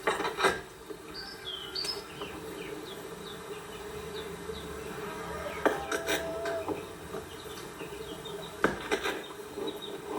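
Steady insect buzzing, with short bird chirps in the first few seconds and several sharp knocks scattered through.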